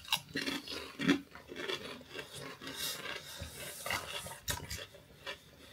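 Crisps being crunched and chewed by mouth, an irregular run of crackly crunches: Takis hot chili pepper and lime potato crisps.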